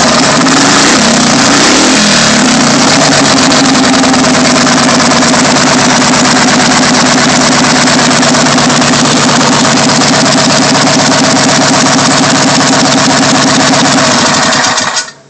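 Hot-rodded Briggs & Stratton Raptor 5 hp single-cylinder flathead engine, with a 233 reground cam and bored-out carburetor, running loud and steady through its pipe header. The pitch wavers briefly about a second or two in, and the engine is shut off and cuts out suddenly near the end.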